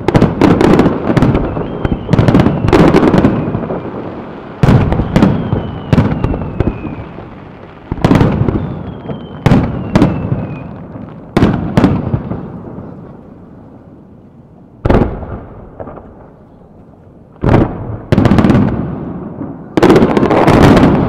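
Aerial firework shells bursting in quick volleys, each sharp bang trailing off in a rumbling echo. The bursts thin out in the middle, then come in a dense cluster near the end.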